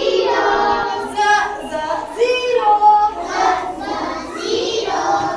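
Young children's voices singing together in a sing-song chant.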